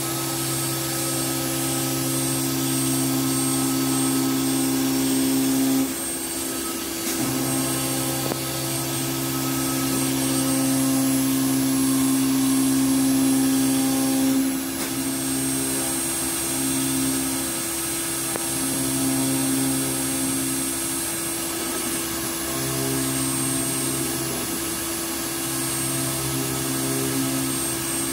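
Five-axis CNC router's spindle running steadily as it machines a wooden board, a continuous whine with a lower hum that breaks off briefly and returns several times.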